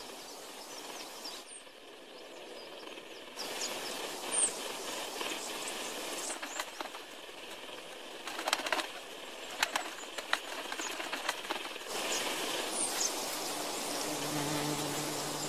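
Hovering hummingbirds' wings whirring in a steady buzzing hiss, with a few short, sharp high chips and clicks scattered through.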